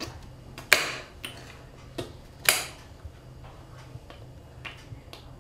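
Kitchen knife slicing mushrooms and striking a glass chopping board: sharp clicks, two loud ones about a second and three quarters apart with lighter taps between.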